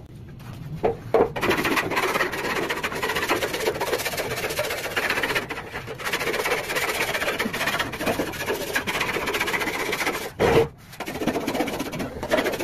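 Hand spreader scraping body filler across a steel motorcycle fuel tank in quick, continuous strokes, the rasp of the blade on the metal. There is a brief louder thump near the end.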